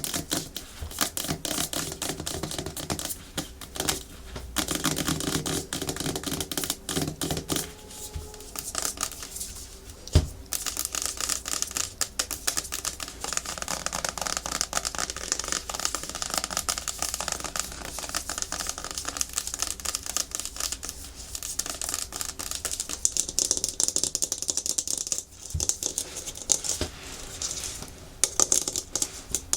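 Natural fingernails tapping fast on a hard plastic surface, a dense run of rapid clicks mixed with scratching, and one louder knock about ten seconds in.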